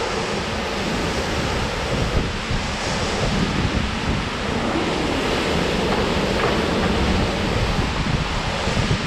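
Strong thunderstorm wind with heavy, wind-driven rain: a loud, steady rush of noise, with gusts buffeting the microphone.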